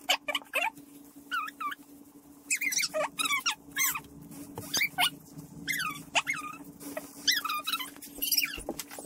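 Blue rubber gloves squeaking as they spread and rub oil into a spalted maple board: many short squeaks that slide up and down in pitch, over a steady low hum.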